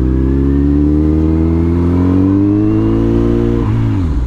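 Kawasaki Z900's inline-four engine pulling under acceleration, its pitch climbing steadily, then dropping away sharply near the end as the throttle closes.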